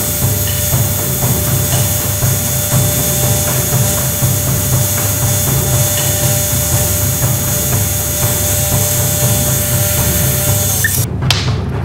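Bench grinder running steadily while a forged steel arrowhead is ground against the wheel. The grinding cuts off about a second before the end, followed by a few sharp knocks.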